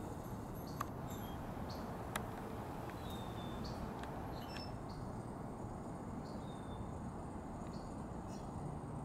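Steady outdoor background noise with faint, brief bird chirps scattered through it, and two sharp clicks about one and two seconds in.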